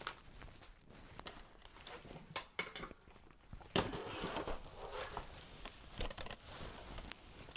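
Padded gimbal support vest being picked up and handled: straps and padding rustle, with scattered clicks and knocks. The loudest knock comes a little under four seconds in.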